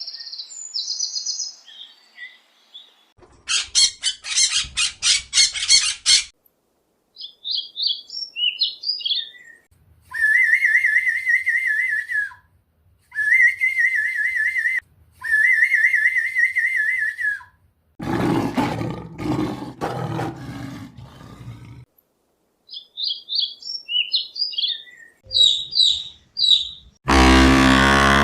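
A string of separate animal calls, mostly short high bird chirps. A fast rattling trill comes early on, three long warbling notes follow in the middle, and a rough, noisy call sounds a little past the middle. A louder call with many stacked tones starts near the end.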